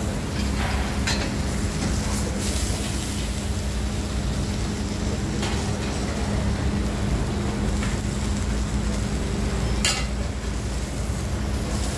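A whole fish sizzling on a banana leaf on a hot flat griddle, with a few sharp clinks of metal tongs and spatula against the griddle plate. A steady low hum runs underneath.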